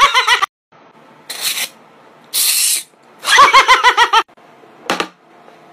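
A man laughing loudly in rapid, even ha-ha-ha pulses, in two bursts: one at the start and another about three seconds in. Between them comes a short hissing burst, and there is a brief click near the end.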